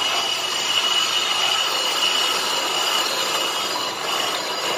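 Lathe turning a cast-iron brake disc rotor, the cutting tool on the disc face making a steady high-pitched metal squeal over the machine's running noise.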